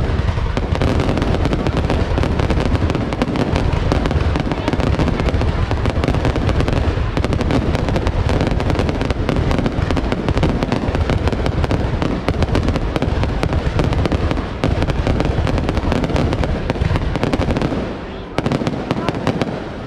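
Fireworks going off in a dense, continuous barrage of bangs and crackles, easing briefly near the end.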